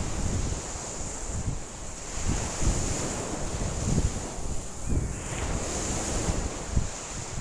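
Wild lake waves washing and breaking in strong wind, with gusts buffeting the microphone in uneven low rumbles and a steady hiss of wind and spray over it.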